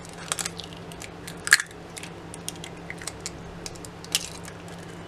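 Eggs being cracked open and emptied into a pot of milk: a run of sharp eggshell cracks and crunches, the loudest about one and a half seconds in and another near four seconds.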